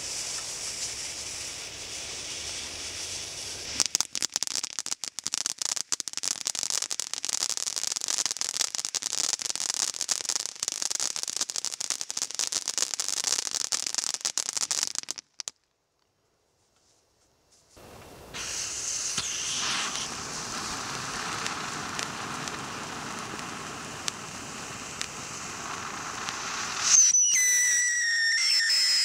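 Cone fountain firework spraying sparks with a steady hiss that turns into dense crackling about four seconds in, then cutting off sharply about halfway through. After a short silence another hissing spray starts, and near the end a rocket's whistle shrieks loudly, its pitch sliding slightly down.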